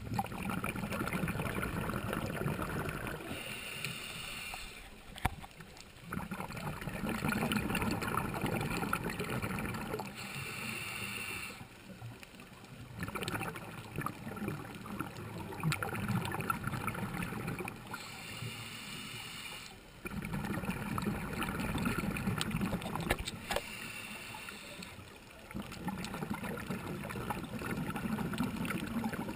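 Scuba diver breathing through a regulator underwater: the bubbling gush of exhaled bubbles alternates with a shorter, quieter hiss of inhalation, about one breath every six to seven seconds, four breaths in all.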